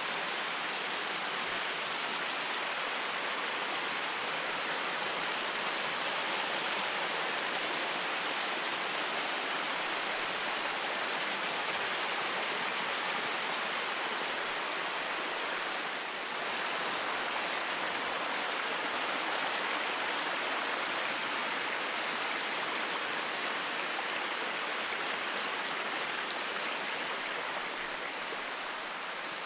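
Fast-flowing mountain stream water rushing steadily, with a slight fall in level near the end.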